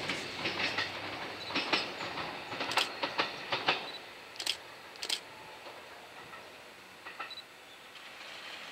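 Seibu 101-series electric train running away, its wheels clicking over rail joints. The clicks come in clusters for the first few seconds, then grow sparse and fainter as the train recedes.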